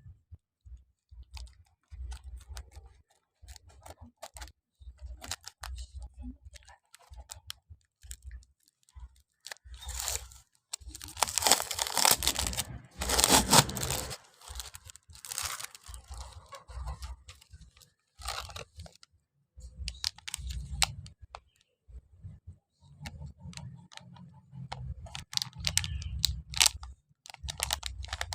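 Plastic parcel packaging being handled and torn open, crinkling and crackling, with scattered clicks and light knocks. The loudest stretch of tearing comes about ten to fourteen seconds in.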